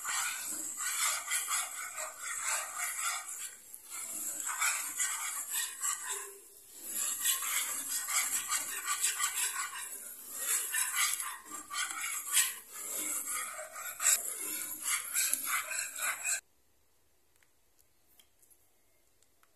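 Metal wire whisk scraping and stirring thick curry roux paste around a pan, in repeated uneven rasping strokes. It stops abruptly about sixteen seconds in, leaving near silence.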